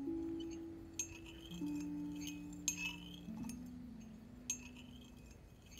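A metal teaspoon stirring in a porcelain teacup, clinking sharply against the rim a few times with a bright ringing tail: the stirring used as a hypnotic cue. Low sustained notes of film score change pitch underneath.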